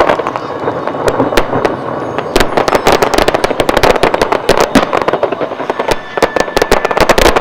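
Fireworks display: a dense run of rapid crackling pops and sharp bangs from low-level fountains and bursting aerial shells, growing much thicker about two seconds in.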